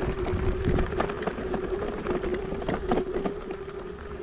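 Kugoo G2 Pro electric scooter ridden in first gear over rough off-road ground: a steady motor whine under a stream of irregular rattles and knocks from the scooter jolting over the bumps, with a low rumble.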